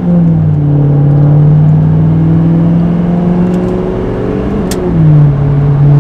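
L5P Duramax 6.6-litre V8 turbodiesel with an upgraded Stealth 64 turbocharger pulling hard under acceleration, heard from inside the cab. The engine note climbs steadily, then drops about five seconds in as the transmission upshifts, with a similar drop just at the start.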